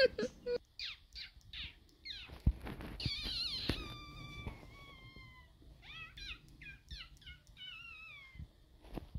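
Pet budgerigars chirping and warbling: a string of short chirps, then longer calls that slide down in pitch, from about three seconds in to near the end.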